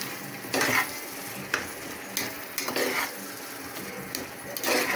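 A metal spoon stirring and scraping through a thick tomato masala with mint leaves in a pressure cooker pot, in a handful of irregular strokes over a faint steady sizzle.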